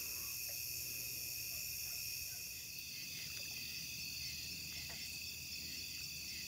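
Steady chorus of night insects such as crickets, a continuous trilling held at several high pitches at once.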